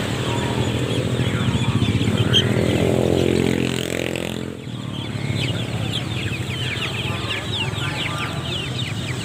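Many young native village chicks peeping from their cages, their calls thickest in the second half. In the first half a motor vehicle's engine passes, loudest about three seconds in and gone before the middle.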